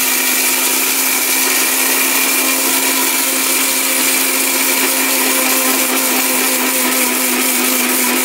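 A 1600-watt electric blender's motor runs flat out in the small grinding jar, a steady whine over a loud rush, grinding whole dry spices such as garam masala and cinnamon.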